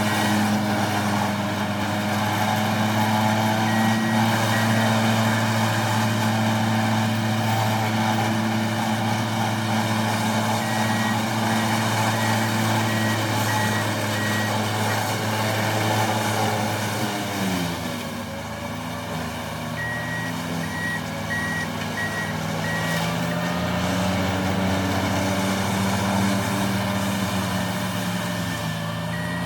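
Wacker Neuson ST45 skid steer's diesel engine running hard at steady revs. About 17 seconds in its pitch drops, and then it rises and falls with the load. A reversing alarm beeps in several short spells.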